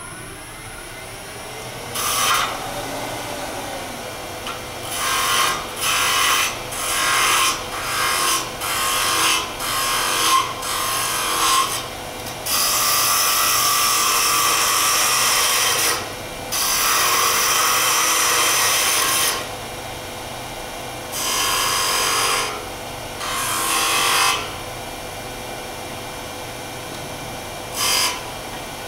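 Woodturning lathe running, with a hand-held turning tool cutting into a spinning wooden blank. First come short cuts about once a second, then longer cuts of about three seconds each, with a few more short passes near the end, over the lathe's steady motor hum.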